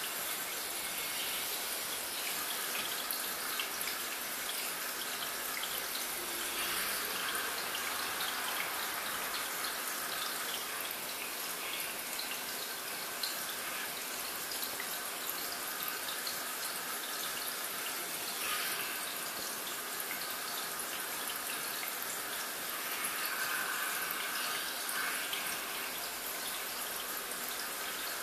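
Aquarium water trickling and bubbling steadily, with many fine crackles.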